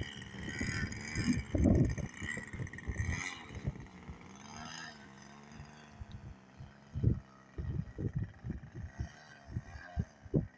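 Nitro glow engine of a radio-controlled model airplane running at low throttle while taxiing: a steady pitched whine that wavers briefly a few seconds in. Irregular low gusts of wind buffet the microphone.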